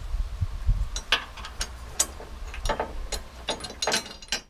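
Steel hitch side bracket and its bolts clinking against a 2016 Ford F-350's frame rail as the bracket is fitted and loosely bolted on: a string of irregular sharp metal clicks, coming faster near the end.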